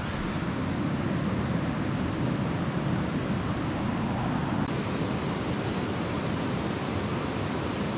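Steady rushing noise of a mountain stream mixed with the hiss of a gas canister stove burning under a pot. The hiss brightens slightly just under five seconds in.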